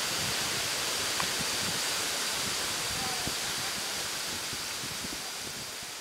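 Steady rush of falling water from a waterfall, slowly fading out toward the end.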